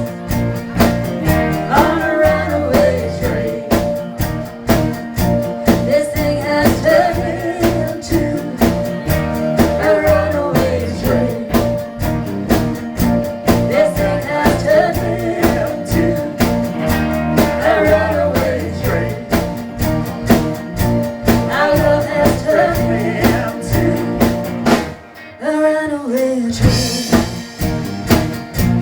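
Live band playing a country-rock song: electric guitars, bass and drum kit with a steady beat. About three-quarters of the way through, the bass and drums drop out for a moment, then come back in.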